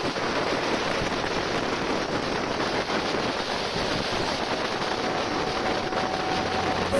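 Steady rushing wind noise on the microphone of a moving motorcycle, mixed with road noise.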